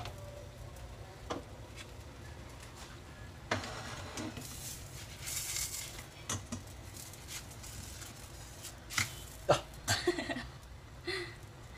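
A spatula scraping and clicking against a stainless steel frying pan as it is worked under a cooking pancake, then two sharp knocks about nine seconds in as the pancake is flipped. A steady low hum runs underneath.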